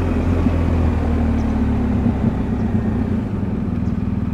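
BMW R1250 motorcycle's boxer-twin engine running at low speed in town, a steady low drone that eases off a little about halfway through.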